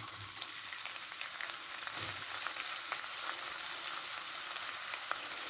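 Chopped onion sizzling in a little vegetable oil in a frying pan: a steady hiss with small crackles.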